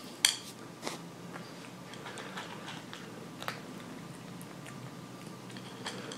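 A kitten eating dry kibble from a bowl: faint crunching with scattered small clicks. A sharp click about a quarter of a second in is the loudest sound.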